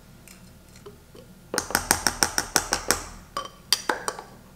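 A quick run of sharp glassy clinks, about six a second, with a few more clicks after a short pause. This is the frother bottle being tapped over the mason jar of iced cold brew to knock the last cold foam out.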